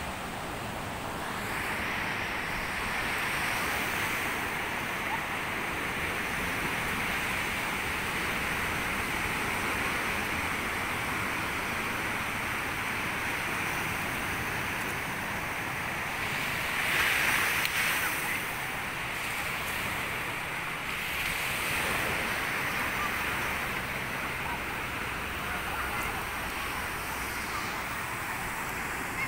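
Ocean surf breaking on the shore, a steady rush of waves that swells louder about seventeen seconds in and again a few seconds later.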